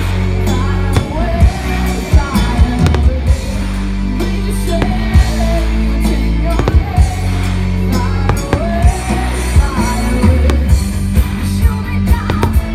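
Loud rock music with singing, crossed by sharp fireworks bangs going off at irregular intervals.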